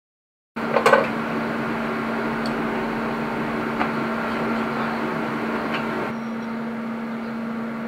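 Steady electrical hum with a hiss from a TIG welding set left running after the weld, with a few faint clicks. The higher part of the hiss drops away about six seconds in.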